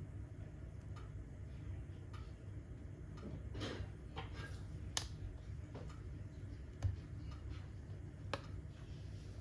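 Wood fire burning in a fireplace: irregular crackles and sharp pops about once a second over a steady low rumble, with a short hiss a little before the middle and the loudest pops about halfway through and two-thirds of the way in.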